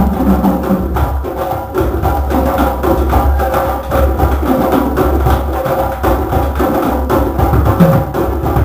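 A drum circle playing together, many drums and percussion instruments keeping up a dense, continuous rhythm.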